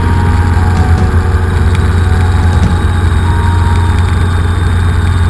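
Robinson R22 helicopter in flight, heard from inside the cockpit: a loud, steady drone of engine and rotor with a strong low hum.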